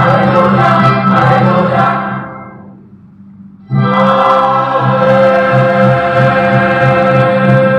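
Mixed choir of women and men singing a hymn. The singing fades away about two seconds in and comes back abruptly at full strength about a second and a half later.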